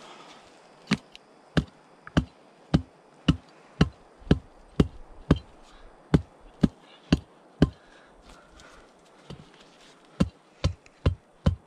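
Hand digging tool chopping into the ground: a steady run of blows, about two a second. After a pause of a couple of seconds the blows start again, a little faster, near the end.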